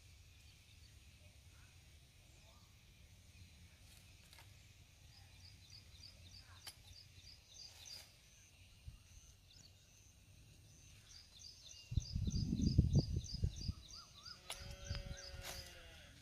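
A small bird chirping in a fast, even series of high chirps, in two stretches, over a faint outdoor background. About twelve seconds in, a loud low rumble lasting under two seconds, then a shorter one.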